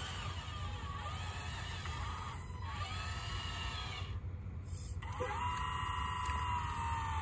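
Electric motors of a 1:14-scale radio-controlled Caterpillar 988 wheel loader whining, the pitch swooping up and down in short arcs as the throttle is worked, then held at a steadier whine for the last two seconds or so.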